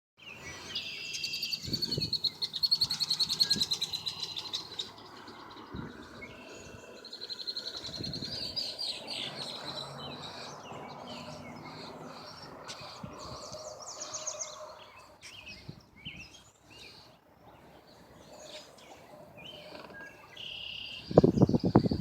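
Small birds singing, with long rapid trills and shorter chirps. A few low thumps, with a louder low rumbling near the end.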